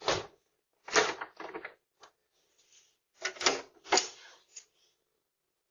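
A door handle being tried: sharp clacks and clunks of the handle and latch rattling against a lock, in three bunches with a pause of about a second and a half in the middle.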